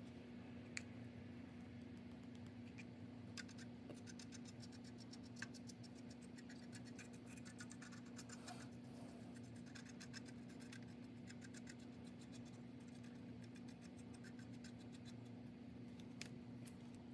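A small brush scrubbing dry weathering pigment into the plastic suspension and road wheels of a scale-model tank: faint, rapid scratchy ticks of bristles on plastic, thickest through the middle and stopping near the end. A steady low hum runs underneath.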